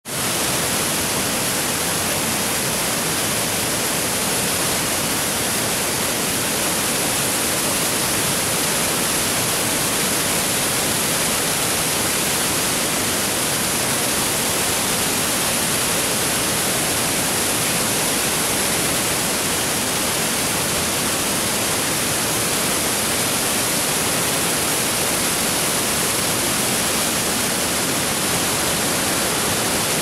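Waterfall pouring down a rock face and cascading over boulders into a pool: a steady, even rush of falling water.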